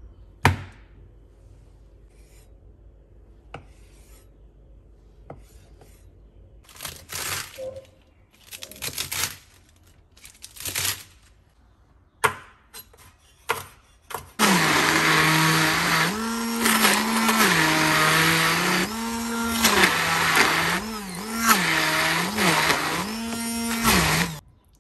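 A few knife cuts on a wooden cutting board, then, about halfway through, an immersion blender starts and runs for about ten seconds, blending pesto sauce. Its motor pitch rises and falls again and again as it works through the basil, nuts, cheese and oil. It stops abruptly near the end.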